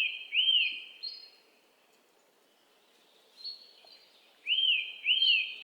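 Bird chirping: a clear whistled note that rises and falls, given twice near the start and twice near the end, with a faint higher note between and a quiet gap in the middle.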